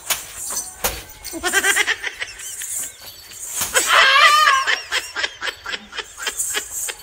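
People laughing, with a louder burst of laughter about four seconds in, mixed with short clicks and knocks.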